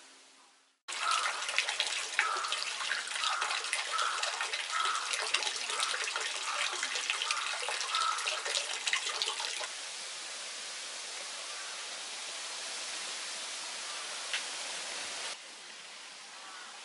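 Water gushing from a bronze dragon-head spout and splashing into a basin, a dense splashing with many small drips. About ten seconds in it settles to a softer, steady rush of water, and it drops lower again near the end.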